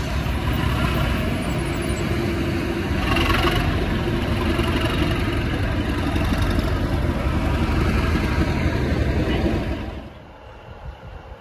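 Class 37 diesel locomotive's English Electric V12 engine running hard under load, a loud steady din with a faint steady tone through it. About ten seconds in it drops away suddenly to a much quieter background.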